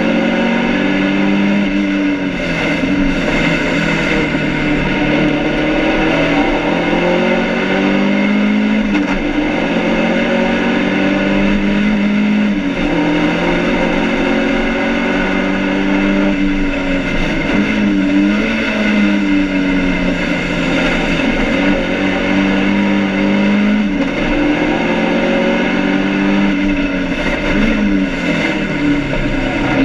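BMW 2002 race car's four-cylinder engine, heard from inside the cabin, revving hard and climbing in pitch through the gears, then dropping back at each shift and when braking for corners. The engine is short-shifted to spare it from overheating.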